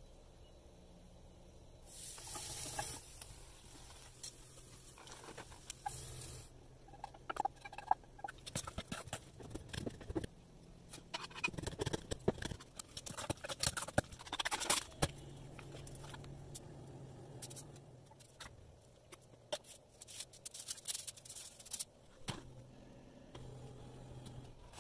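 Kitchen preparation sounds: many short taps and clicks, including a knife chopping herbs on a wooden cutting board, with brief hissing and scraping and a faint low hum between them.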